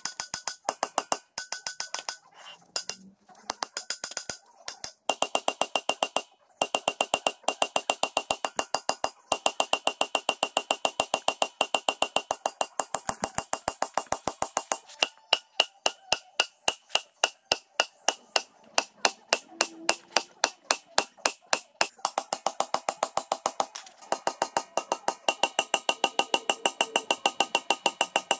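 Background music with a fast, even percussive tick, about four beats a second, over sustained tones that change twice, with a couple of brief breaks.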